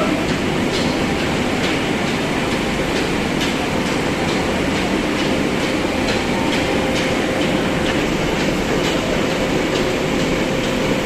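300-ton fully automatic hydraulic baling press running: a steady, loud mechanical din with a faint constant hum and light ticks repeating a little more often than once a second.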